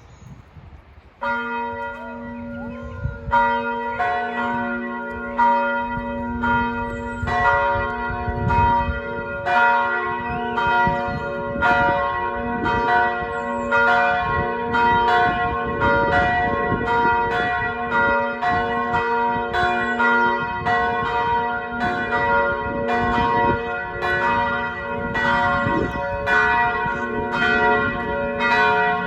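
Church bells ringing for noon. A deep bell starts about a second in, and higher bells join over the next few seconds, all striking over and over in a full, overlapping peal.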